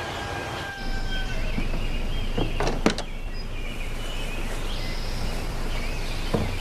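Evening outdoor ambience: birds calling in short chirps over a steady low background hum, with one sharp click about three seconds in.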